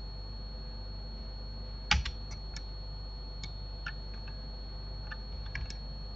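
Scattered clicks of computer keys and a mouse, the loudest about two seconds in, over a faint steady high whine and a low hum.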